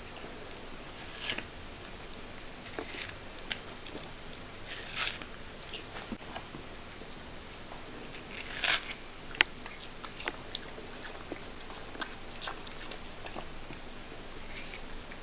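A cat biting and chewing melon: irregular small wet crunches and clicks, a few every second or two, with a louder cluster and one sharp click about nine seconds in.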